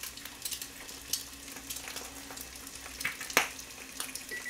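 Eggs frying in oil in a small pan: a steady sizzle with scattered crackles and pops. One sharper click comes about three and a half seconds in.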